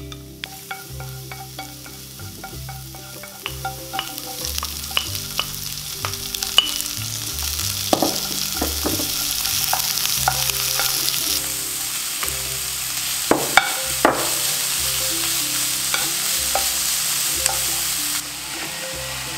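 Minced garlic, then sliced onion, green pepper and bacon, sizzling in hot oil in a nonstick frying pan while being stirred with a wooden spatula. The sizzle grows louder over the first several seconds as the vegetables go in, with sharp clicks of the spatula against the pan.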